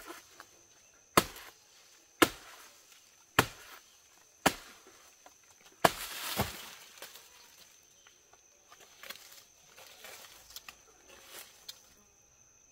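A machete chopping into the soft, fibrous trunk of a banana plant: six sharp strokes about a second apart, followed by softer rustling and small knocks among the leaves. A steady high insect trill runs underneath.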